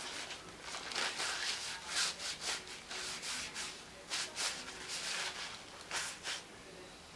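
Crab leg shells being cracked and picked apart by hand close to the microphone: a run of irregular crackling, scraping rustles that thins out near the end.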